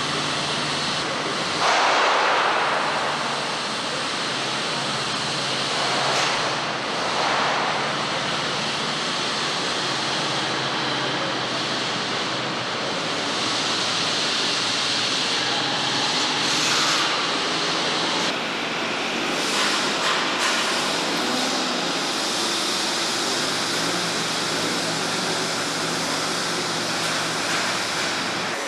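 Steady hissing machine noise of warehouse handling equipment, an electric pallet shuttle running in the rack channels along with a forklift, with a few brief louder swells.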